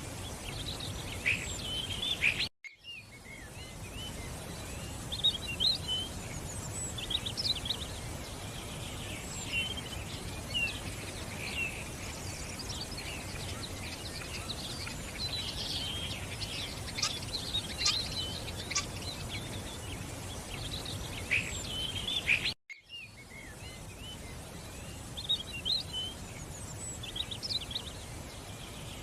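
Several birds chirping and singing in short, overlapping calls over a steady outdoor background hiss. The sound drops out abruptly twice, a few seconds in and about three quarters of the way through, where the recording is cut.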